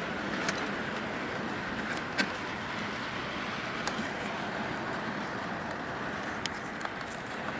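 Steady rain falling, an even hiss with a few sharp drips or taps scattered through it.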